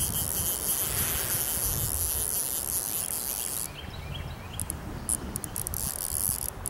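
Outdoor river ambience: a low, uneven rumble under a steady high hiss. The hiss drops away about halfway through, and scattered faint ticks follow.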